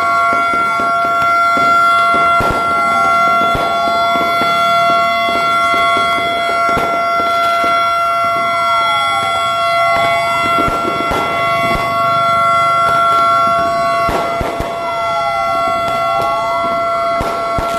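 Fire truck sirens sounding together: several steady held tones, with one siren wailing slowly down and back up about every six seconds. Sharp bangs are scattered throughout.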